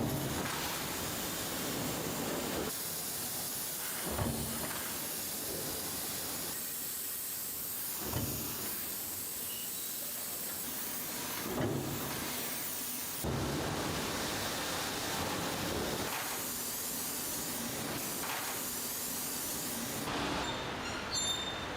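Steady hissing factory machinery noise, with a few short dull thumps; its character shifts every few seconds.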